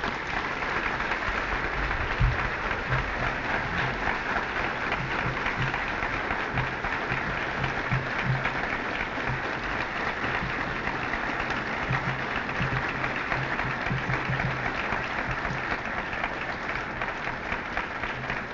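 Audience applauding: a long, steady round of clapping that begins suddenly and fades a little near the end.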